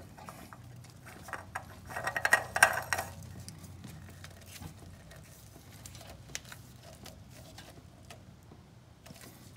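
Gloved hand spinning a new oil filter onto its threaded mount by hand: a quick cluster of clicks and scrapes about two seconds in, then faint scattered ticks.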